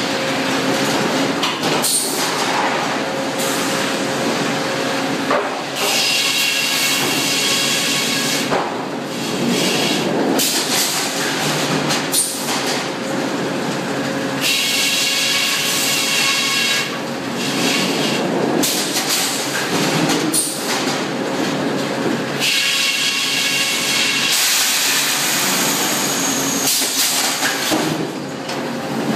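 Sawmill head rig running: a large circular headsaw cutting a log on a shotgun-feed carriage, over the steady clatter of the mill machinery and roller conveyors. Three times a high, ringing whine rises over the din as the blade passes through the log.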